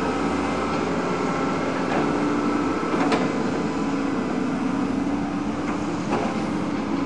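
Diesel engine of a rail-mounted excavator running steadily with a hydraulic hum as the machine swings and raises its boom, with a few faint knocks.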